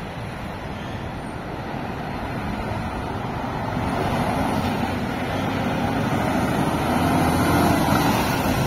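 Diesel engine of a Mercedes-Benz Actros articulated lorry driving slowly round a roundabout towards and past the listener, its rumble growing steadily louder as it nears.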